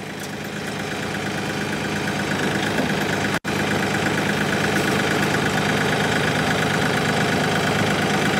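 Kioti compact tractor's diesel engine running steadily, growing louder over the first couple of seconds as it works across uneven ground in two-wheel drive, the loader raised high with a heavy rock in the bucket. The sound cuts out for an instant a few seconds in.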